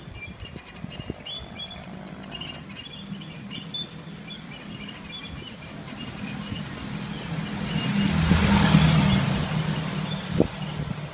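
A motorcycle passes close by, growing louder to a peak about eight or nine seconds in and then easing off, over a steady low street hum. Birds chirp in the first half.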